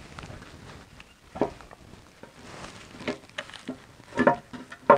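Scattered light knocks, clicks and rustling of hands handling parts under a car, with a sharper knock about a second and a half in and a few more near the end.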